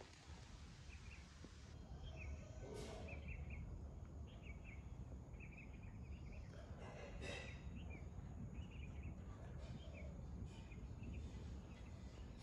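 Faint animal sounds: short high chirps come and go over a steady low rumble, with two brief breathy snorts, about three and seven seconds in.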